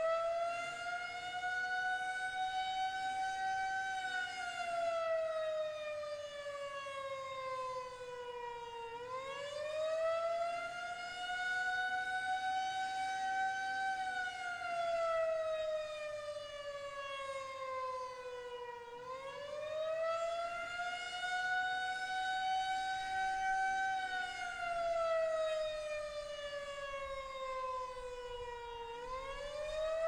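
Federal Signal 2001-130 outdoor warning siren sounding the Attack signal, its rotator broken so the horn does not turn. The pitch climbs quickly, then slides slowly back down, repeating about every ten seconds.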